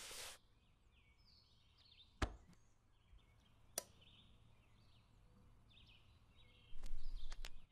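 Faint handling sounds of a turntable being started: a couple of sharp clicks, with faint bird chirps in the background, then near the end the crackle and clicks of the stylus setting down on the vinyl record.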